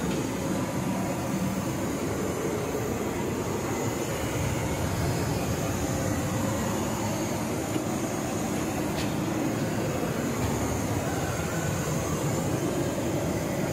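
Steady cabin noise of a Boeing 737 MAX 8 airliner in flight: an even rush of airflow and engine noise, heard from inside the cabin.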